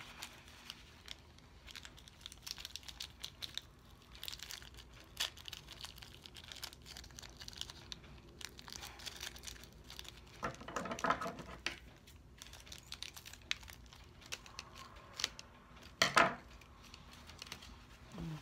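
Foil and plastic wrapping crinkling and tearing as a waxy ring packet is picked open by hand, with a paper towel rubbed over it and many small scattered clicks. The loudest crackle comes near the end.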